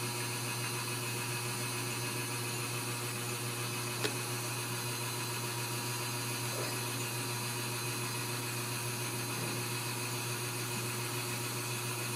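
A steady, even hum and hiss, with one sharp click about four seconds in.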